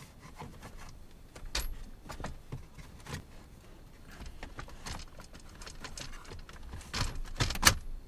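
Hard plastic dash trim panels of a Toyota 4Runner being handled and pressed back into place, giving scattered clicks, knocks and rattles, with the loudest sharp snaps near the end.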